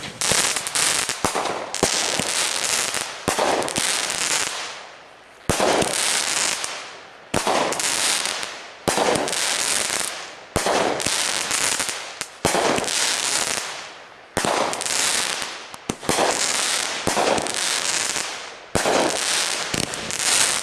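A multi-shot consumer firework going off in a steady series, about a dozen shots roughly every one and a half to two seconds. Each shot is a sharp bang followed by a loud hissing, crackling tail that fades away.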